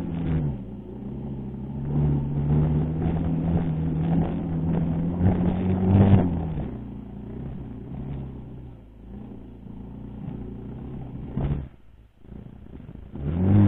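Racal MC125 dirt bike's 125 cc engine running under way. It pulls with a slowly rising pitch for the first six seconds, then eases off and runs lower and quieter, drops out briefly about twelve seconds in, and revs up again near the end.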